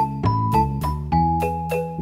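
Background music: a melody of short notes, about four a second, over sustained low chords.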